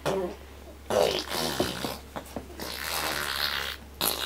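A young child making loud, spluttering blowing noises with the mouth in several bursts, like blown raspberries.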